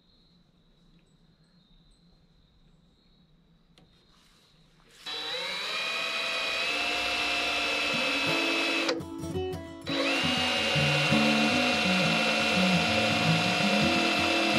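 A power drill's motor spins up suddenly about five seconds in and runs at a steady whine. It stops briefly about four seconds later, then runs on. Before it starts there is only a faint, steady high tone.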